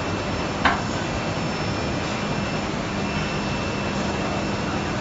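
CNC mortising and tenoning machine running: a steady mechanical drone with a low hum, and one short sharp clack under a second in.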